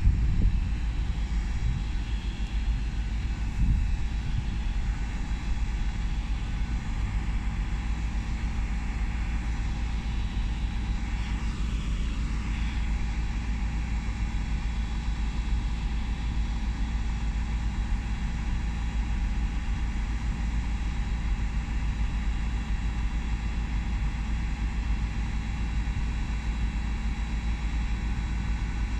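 Steady drone of a Great Western Railway Intercity Express Train (Class 800/802) standing at the platform with its underfloor diesel engines running.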